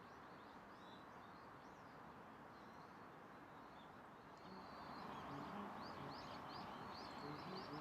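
Faint songbird chirping over a steady hiss of outdoor background noise, the chirps coming thicker and faster from about halfway through.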